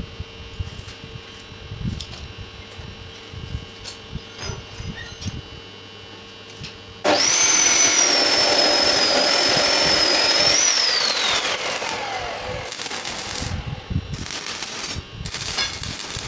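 Electric angle grinder switched on, running at a steady high whine for about three and a half seconds, then switched off and winding down with a falling pitch. Near the end come several short crackling bursts of stick (arc) welding as tack welds are struck on the steel grill.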